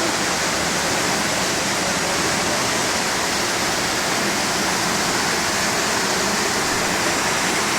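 Floodwater rushing steadily, an even unbroken roar of water.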